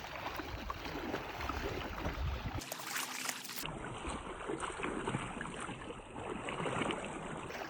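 River water running, a steady noisy wash that changes abruptly about three seconds in and again a second later.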